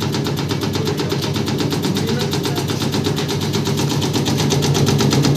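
Automatic leaf-chopping machine running steadily, its drive and rotating cutter making an even, fast-pulsing mechanical drone as it shreds green leaf.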